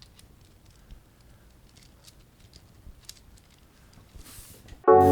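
Faint, irregular light clicks of an infinity cube fidget toy being folded over and over in the hand. Loud synthesizer music with steady chords starts suddenly near the end.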